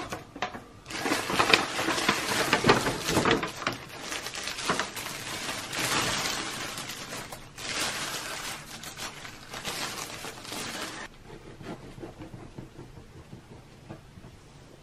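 A paper shopping bag and a thin plastic bread bag rustling and crinkling as a loaf of shokupan is lifted out and unwrapped. About eleven seconds in, the crinkling stops and only faint, quiet handling sounds remain.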